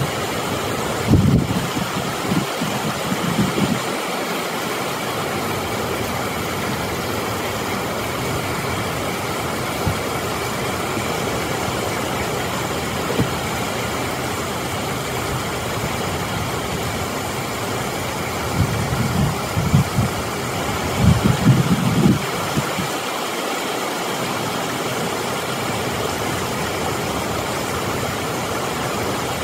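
Steady rush of water pouring over a dam spillway and churning below it, with a few low thumps about a second in and again about two-thirds of the way through.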